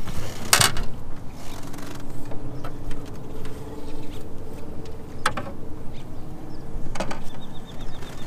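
Sharp knocks of a landing net and a caught catfish against a small aluminium boat as the fish is brought aboard and handled: three knocks, about half a second in, about five seconds in and about seven seconds in, with a faint steady hum underneath.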